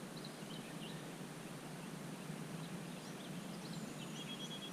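Quiet outdoor ambience: a steady low background rumble with faint, short bird chirps scattered through it, including a brief steady whistle near the end.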